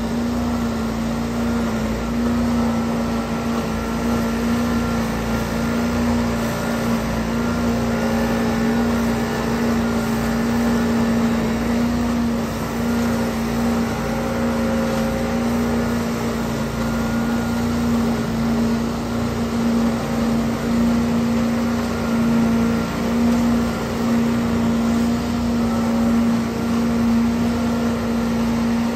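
Trailer-mounted leaf vacuum running steadily as it sucks up leaves through its wide intake hose, a constant loud hum at one unchanging pitch over a rushing noise.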